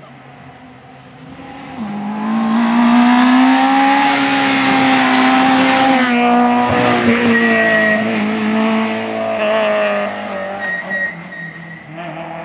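Citroën C2 rally car at speed on a stage: its engine comes in loud about two seconds in, holds a high steady note as it passes close by around six seconds in, then drops in pitch and fades as it pulls away.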